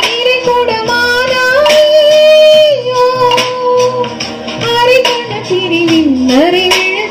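A woman singing a Tamil film melody alone into a microphone over a backing track, holding long notes, with a steady beat pulsing underneath.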